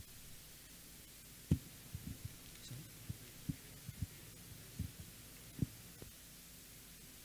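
Handling noise on a handheld microphone: soft, irregular low thumps as the fingers shift on the mic body, the loudest about a second and a half in, over a faint steady hum.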